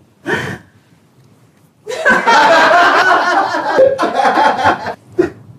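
Laughter: a short burst, then about three seconds of loud, sustained laughing.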